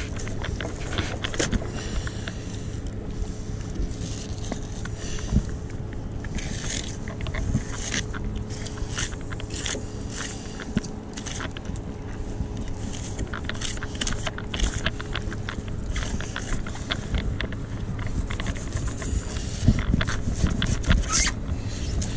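Fillet knife cutting and scraping through a blackfish on a fish-cleaning board: irregular short scrapes and clicks. A steady low engine hum runs underneath.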